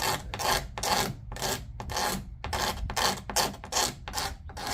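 Rapid back-and-forth scraping on the plastic housing of a Ryobi cordless leaf blower, about three short strokes a second, as old tape and adhesive are scraped off.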